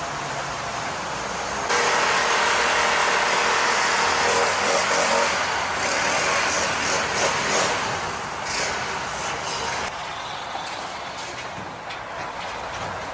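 Petrol cut-off saw grinding into asphalt: a loud, rasping, steady noise that starts suddenly about two seconds in and eases off after about eight seconds, over the running engines of heavy road-works machinery.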